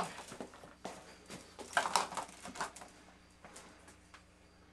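Scattered light knocks and rustling of glass jars of home-canned tomatoes being handled at wooden shelves, with the loudest cluster of knocks about two seconds in.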